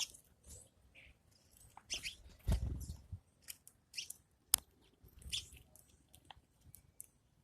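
A bird's short, irregular chirps and clicks, with a low dull thump about two and a half seconds in.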